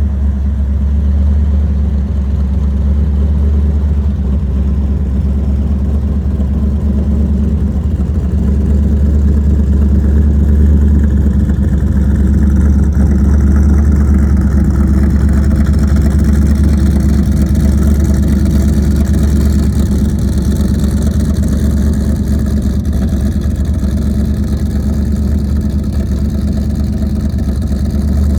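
Ford Lightning pickup's V8 fitted with an aftermarket Comp Cams camshaft, running steadily at idle.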